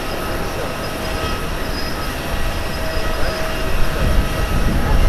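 Boeing 767-300ER airliner's twin jet engines on final approach just before touchdown: a steady low rumble with a thin whine over it.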